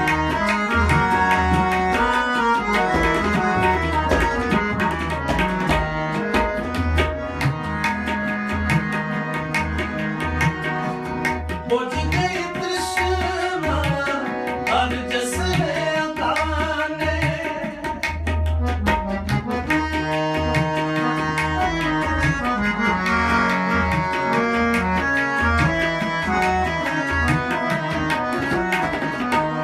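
Tabla and harmonium playing an instrumental kirtan passage: the harmonium holds steady reed chords while the tabla keeps a running rhythm with deep bass strokes from the bayan.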